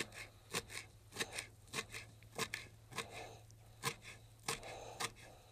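Kitchen knife chopping fresh dill and parsley on a wooden cutting board: a steady run of sharp knocks of the blade on the board, about one every half second.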